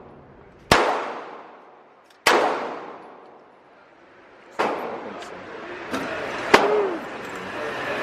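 Gunshots at a shooting range: four loud, evenly spaced shots about one and a half to two seconds apart, each echoing and fading away, with a couple of fainter shots in between.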